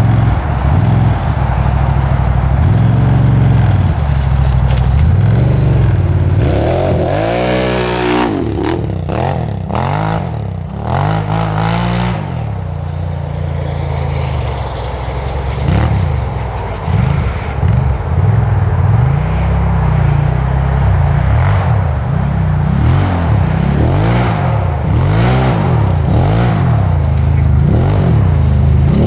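Can-Am XMR 1000 ATV's V-twin engine revving up and down over and over as the quad is ridden hard. There is a stretch of clattering and scraping about a quarter of the way in.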